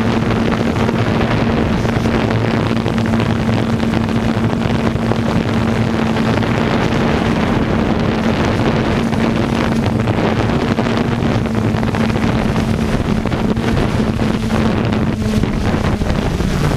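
DJI F550 hexacopter's motors and propellers running with a steady buzz, heavy wind noise on the onboard microphone mixed in. Near the end the buzz falls in pitch as the craft sets down in the grass.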